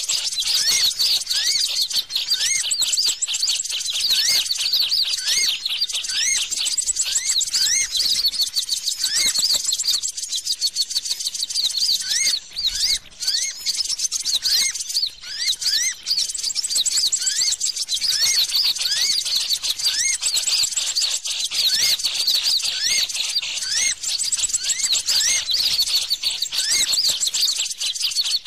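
A bird-trapping lure call: dense, continuous high-pitched bird chirping and twittering. Short rising chirps repeat about every two-thirds of a second, briefly thinning out about halfway through.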